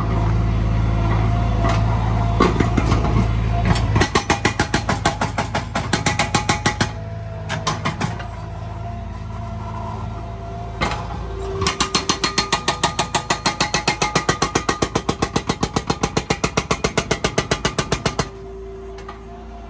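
Skid-steer loader's hydraulic breaker hammering a concrete slab in rapid, even blows, several a second. It goes in two runs, a short one a few seconds in and a longer one of about seven seconds. The loader's engine runs steadily through the first few seconds.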